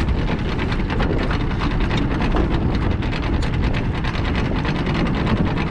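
Small tiller outboard motor running steadily as the boat trolls, with wind noise on the microphone.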